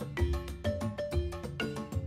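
Background music with a steady beat and short, bright struck notes.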